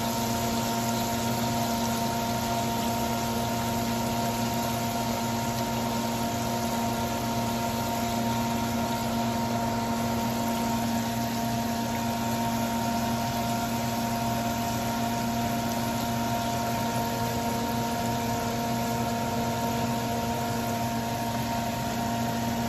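Chicken pieces deep-frying in a pot of hot oil: a steady sizzle with a constant hum under it.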